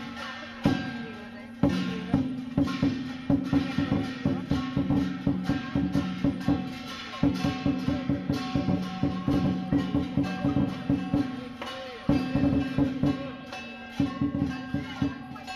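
Chinese lion dance percussion: a drum beaten in quick strokes, several a second, with cymbals and gong ringing along.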